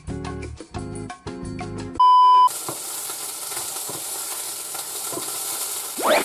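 Upbeat plucked-guitar music for about two seconds, cut off by a loud half-second electronic beep. Then a minced-beef steak sizzles steadily in oil in a frying pan, with a brief rising sound near the end.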